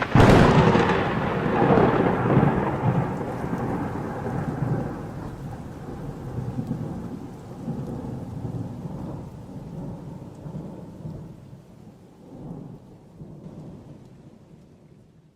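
Thunderclap with rain: a sudden crash at the start, then a long rumble that fades away over about fifteen seconds.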